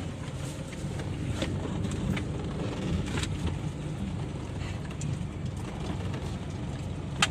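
Car driving slowly down a dirt track, a steady low rumble with a few sharp knocks through it.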